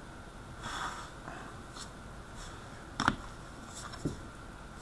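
Faint handling of trading cards: a soft sliding scrape a little under a second in, then a sharp tap about three seconds in and a lighter one about a second later, as cards are moved through the hand.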